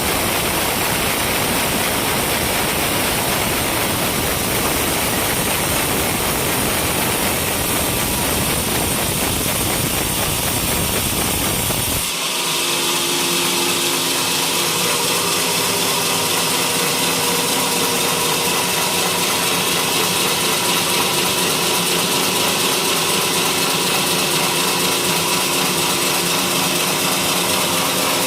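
Sawmill running steady and loud while milling coconut-palm wood. About twelve seconds in the sound changes abruptly from a deep, dense roar to a steadier whine over a hiss, with the deep rumble gone.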